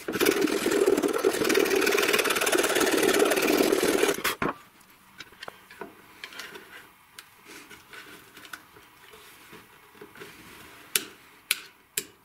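A power tool's motor runs loud and steady for about four seconds, then stops suddenly. Quiet handling follows as a round push-button switch is fitted into a hole in the frame, with three sharp clicks near the end as it is pressed into place.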